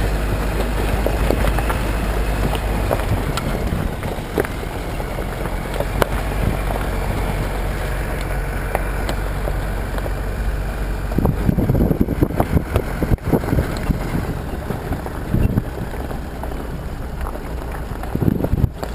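Jeep Wrangler JK's four-cylinder turbodiesel engine running at a steady low drone while driving over a rough, stony track, with occasional knocks. Wind rumbles on the microphone in gusts over the second half.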